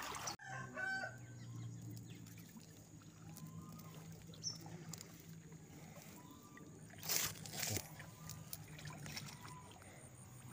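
Faint rooster crowing and chickens clucking in the background, over a faint steady low hum. Two short bursts of noise come about seven seconds in.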